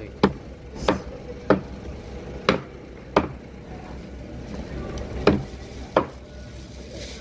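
A large cleaver chopping yellowfin tuna into chunks on a wooden cutting board: seven sharp chops, about one every two-thirds of a second, with a pause of about two seconds midway.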